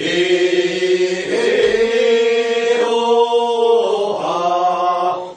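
Group of voices singing a Korean rice-paddy weeding work song (non-maeneun sori, first weeding) together, in long drawn-out chanted notes.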